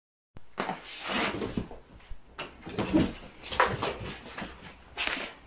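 Irregular rustling, scraping and knocking of a cardboard box being carried and handled, with a few sharper knocks.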